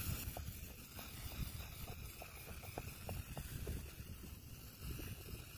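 Steady hiss of black paint spraying from an aerosol-can nozzle driven by air from an inflated inner tube through a plastic hose, over a low rumble of wind on the microphone.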